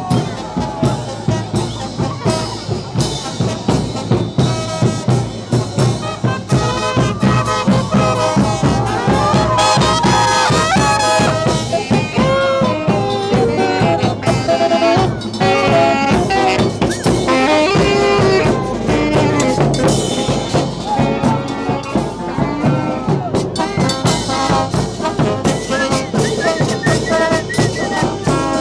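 Brass band music: trumpets and trombones playing a melody over a steady drum beat.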